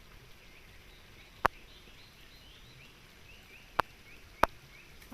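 Faint outdoor ambience of many short, repeated rising chirps from small animals. Three sharp clicks cut through it: one about a second and a half in, and two close together near the end.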